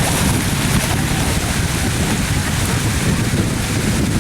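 Steady rushing noise: wind buffeting the microphone over the constant rush of water from a spillway.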